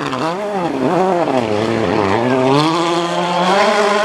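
Volkswagen Polo R WRC's 1.6-litre turbocharged four-cylinder engine under hard acceleration. The revs rise and fall about three times, then hold high and steady over the last couple of seconds.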